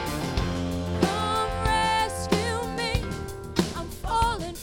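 A full band mix playing back: drums, bass, electric guitar and a sung lead vocal that holds long notes and then sings with vibrato. It runs through a gentle 1.5:1 master-bus compressor with auto make-up gain that is barely reducing the level.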